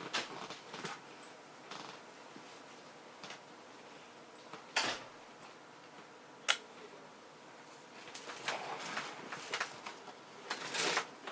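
Quiet room tone broken by scattered soft rustles and clicks, with one sharp click about six and a half seconds in and a busier patch of rustling near the end.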